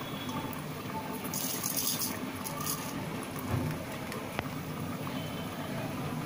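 Salt sprinkled onto raw chicken drumsticks in a stainless steel bowl: a short grainy hiss about a second and a half in, a fainter one shortly after, and a single click later on.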